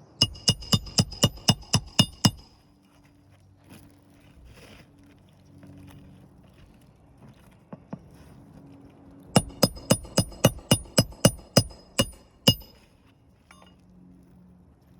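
Hammer driving roofing nails into shingles: two quick runs of blows, about four a second, each blow ringing. The first run comes right at the start and the second begins about nine seconds in.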